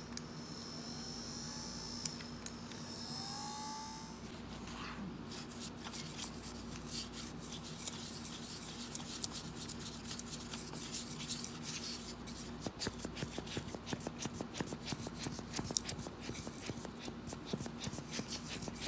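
Small brush scrubbing the plastic inside of a Bose QuietComfort 35 earcup, rapid irregular scratchy strokes that begin about a quarter of the way in and grow busier toward the end.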